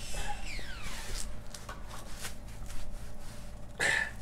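Rubbing and light clicking from a gloved hand tightening a part by hand under a car during an oil change, with a falling squeak near the start and a short louder sound near the end.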